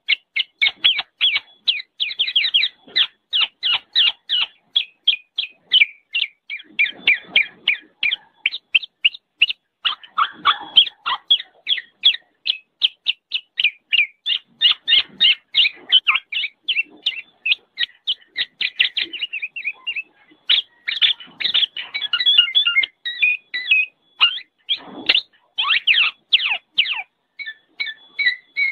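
Black-naped oriole (kepodang) giving noisy calls: a rapid run of short calls, several a second, broken by a few brief pauses.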